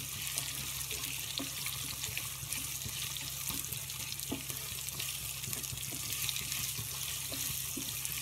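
Freshly added sliced onions sizzling in hot ghee in a nonstick kadhai, a steady hiss, with light scrapes and taps of a wooden spatula as they are stirred.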